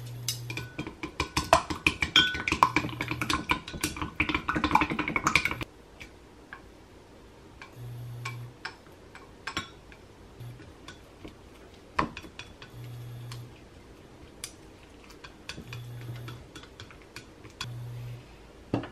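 A raw egg beaten with a utensil in a glass mug: rapid clinking against the glass for about five seconds, then scattered light clicks and taps, and a clank near the end. A low hum switches on and off in short spells several times.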